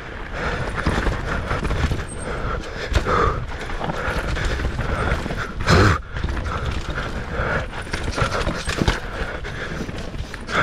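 Mountain bike being ridden fast down a rough, technical dirt trail: tyres on dirt with the frame and chain rattling and knocking over bumps, and one louder hit about six seconds in.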